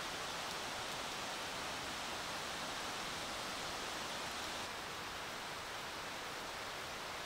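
Pork-belly-wrapped asparagus frying in a cast iron skillet: a steady sizzling hiss that becomes slightly quieter about two-thirds of the way in.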